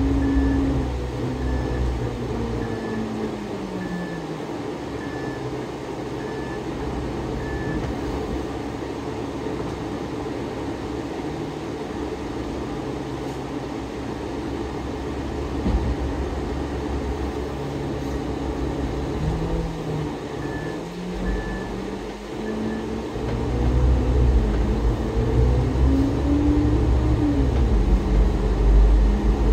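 GO Transit bus heard from inside, its diesel engine and driveline running while the bus moves slowly through a bus loop. The engine whine falls in pitch near the start, rises and falls again in the last third, and gets louder near the end as the bus picks up speed. Two runs of short, evenly spaced high beeps, about one a second, sound in the first quarter and again around two-thirds through.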